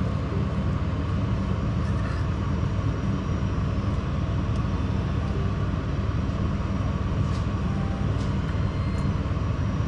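Steady low rumbling background noise, with a few faint clinks of a metal spoon against a china bowl.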